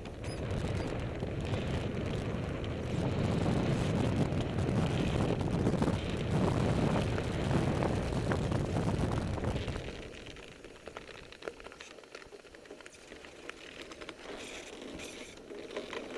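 Wind buffeting the microphone and the wheels of a Blokart land yacht rolling over firm sand while it sails at speed. The rush is loud for about ten seconds, then drops to a much quieter hiss with a few light clicks.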